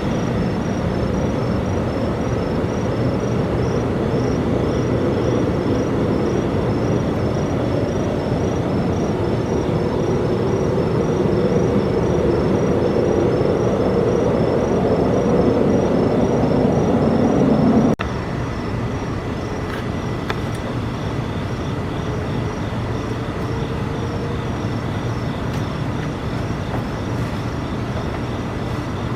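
An unidentified loud, steady droning rumble, the strange noise that residents reported, that swells slightly and then drops off suddenly about eighteen seconds in, leaving a quieter drone. Insects chirp in a steady rhythm behind it.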